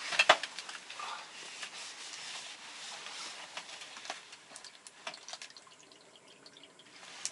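Scattered small clicks, knocks and rustling of things being handled, with a sharp knock about a third of a second in and a single click near the end.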